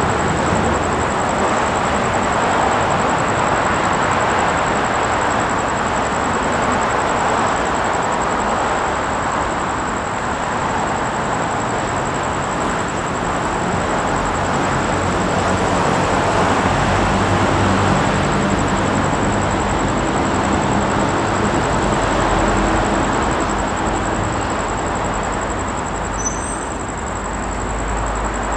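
Steady rumble of vehicle noise, with a low engine hum that comes in for a while about halfway through.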